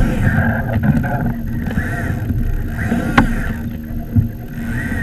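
Wind buffeting an action camera's microphone, with water slapping against a kayak's hull. There is one sharp knock about three seconds in.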